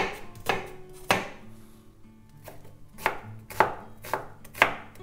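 Kitchen knife dicing an onion finely on a wooden cutting board: about eight sharp knocks of the blade on the board, irregularly spaced with a pause of about a second near the middle.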